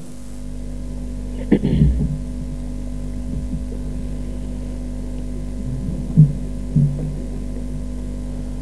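Steady electrical mains hum picked up through the microphone line, with a few short sounds about one and a half, six and seven seconds in.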